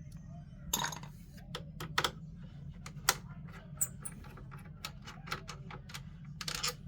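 Irregular light clicks and taps of small metal screws and a T8 Torx screwdriver being handled, over a steady low hum.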